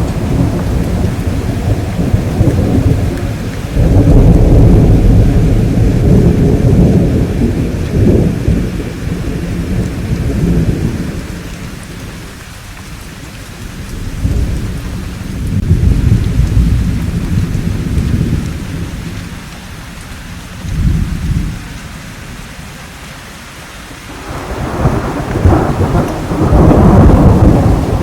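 Thunderstorm: steady rain with repeated rolls of thunder that swell and fade. A long heavy rumble starts about four seconds in, smaller rolls come in the middle, and a strong crack and rumble builds near the end.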